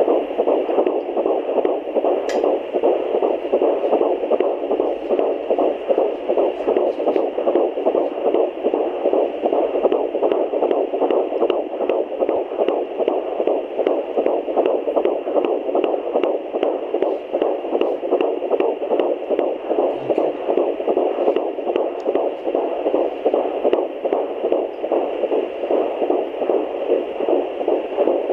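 Heartbeat of a 13-week fetus heard through a handheld Doppler: a fast, even galloping-horse rhythm of beats, several to the second.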